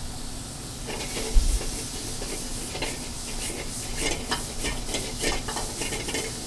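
Spring peas sizzling in a hot oiled sauté pan with shallots, garlic and prosciutto, with a steady frying hiss. From about a second in, the pan is tossed again and again, and the peas rattle against the metal in quick, sharp strikes.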